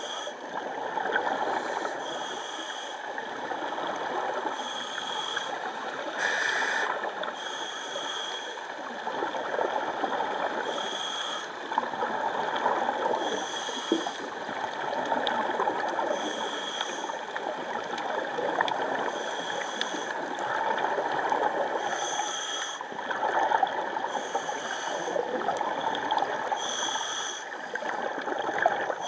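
Scuba divers' regulator breathing heard underwater: steady gurgling exhaust bubbles, with a short hiss coming back about every two seconds.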